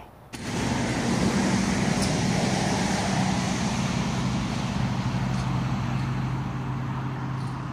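Road traffic running on a busy road: a steady rush of tyre and engine noise with a low engine hum.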